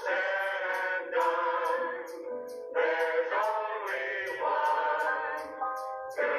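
A group of voices singing a Roaring Twenties tune in harmony, with a steady beat of about two strokes a second.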